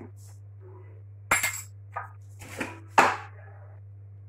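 Kitchen utensils and containers clinking and knocking about four times over a few seconds while seasoning is added to a bowl of eggs and milk. A steady low electrical hum runs underneath.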